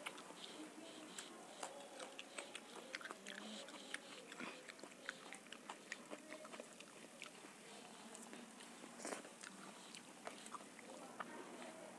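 Quiet eating sounds: soft chewing with many small, irregular wet clicks, along with fingers mixing rice and dal in a steel plate.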